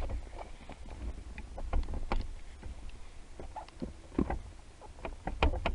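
Scattered clicks, knocks and light rattles of car parts being handled as the shifter housing is worked loose, over a low rumble; the sharpest knocks come about four seconds in and near the end.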